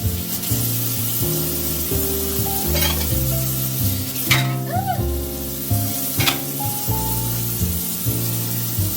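Background music with a melody and bass line, over a continuous hiss and a few short clatters.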